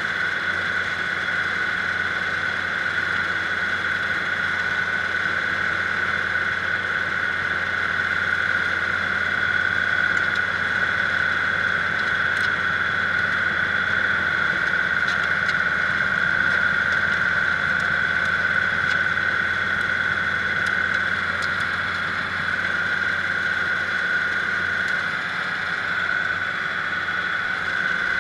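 Kubota diesel engine running steadily, with a constant high-pitched whine over the engine hum.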